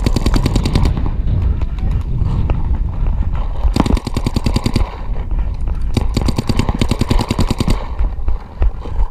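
Empire Vanquish electronic paintball marker firing rapid strings of shots, roughly a dozen or more a second, in three bursts: one at the start, one about four seconds in, and a longer one from about six to eight seconds in, with fainter shots from other markers in between.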